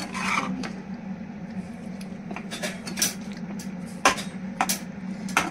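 Metal slotted spatula scraping and clinking against a pan while stirring thick macaroni: irregular knocks, the sharpest about four seconds in, over a steady low hum.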